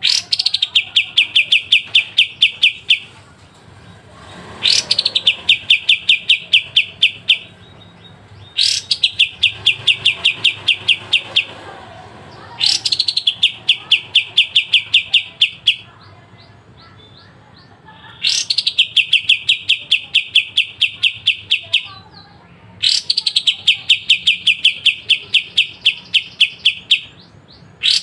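A kapas tembak songbird singing its sharp, rapid trills ('besetan tajam'): about six phrases, each a fast even string of clipped high notes lasting three to four seconds and opening with a quick rising note, separated by short pauses.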